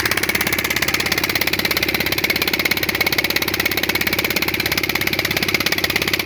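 Fishing launch's engine running steadily with a rapid, even pulsing beat while the boat is under way.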